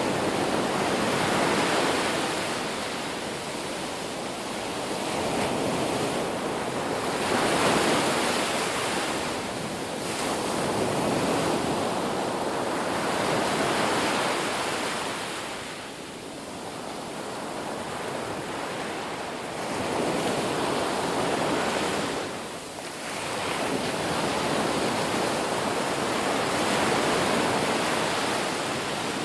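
Ocean waves breaking and washing in, the surf swelling and easing every few seconds.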